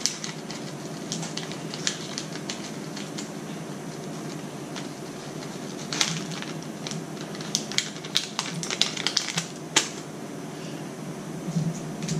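Light, irregular clicks and taps of small objects being handled, coming faster between about six and ten seconds in, over a steady low hiss.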